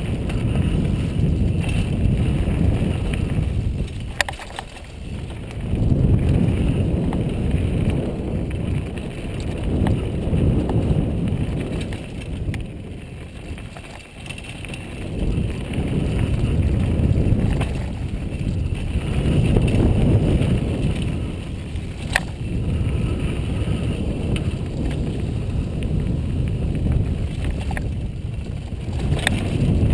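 Riding noise of a downhill mountain bike picked up by a helmet-mounted GoPro: wind buffeting the microphone and tyres rumbling over the dirt trail, rising and falling with speed. A few sharp clacks from the bike come through, one about 4 seconds in, one past the middle and one near the end.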